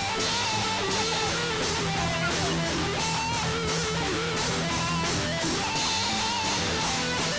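Music: a plucked guitar melody over a steady bass line and beat.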